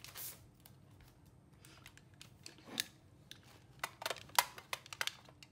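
Scattered light plastic clicks and rustling from small plastic mini vanity eyelash cases being handled and opened, with a quick run of clicks about four seconds in.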